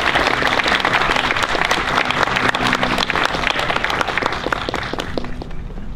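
Audience applauding, thinning out near the end.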